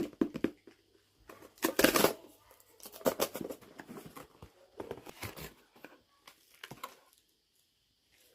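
Perfume packaging being unboxed by hand: irregular bursts of tearing, crinkling and rustling, loudest about two seconds in, dying away near the end.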